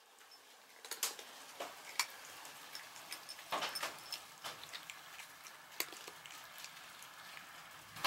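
Two cats eating dry kibble from ceramic bowls: scattered soft crunches and clicks as they chew.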